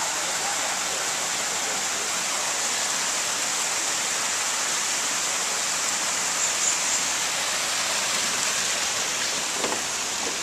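Steady rushing hiss of running water, with a couple of faint brief knocks in the last few seconds.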